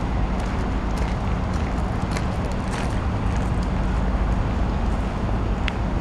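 Steady low rumble of outdoor city background noise, with a few faint clicks.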